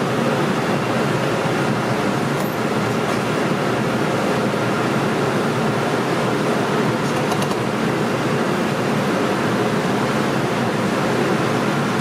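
Steady loud roar of restaurant kitchen ventilation fans, with a few faint clicks of a cleaver on a wooden cutting board.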